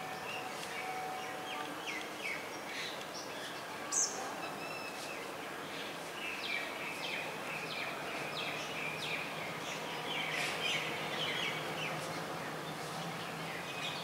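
Birds chirping over steady outdoor background noise: many short, quick chirps, busier in the second half, with one sharp high call about four seconds in. A faint steady hum sits beneath.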